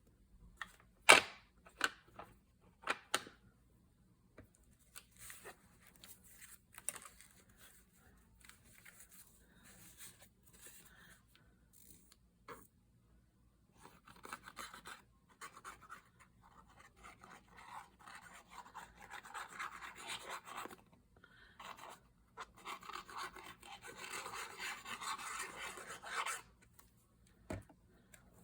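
Paper being handled and rubbed at a craft table: a few sharp taps in the first three seconds, then two longer spells of irregular rubbing and scratching on paper in the second half.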